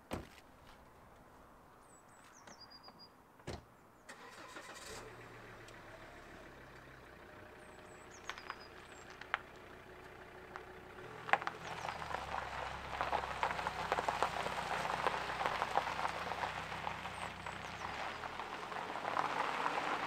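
A car engine starts about four seconds in, after a sharp click and a thump, and runs with a steady low hum that steps up and down in pitch. From about eleven seconds it gets louder, with a dense rough noise over it as the car moves off.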